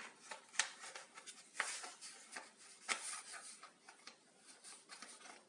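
Faint handling of small kit parts: scattered light clicks and taps with soft rubbing, as pieces are picked up and set down.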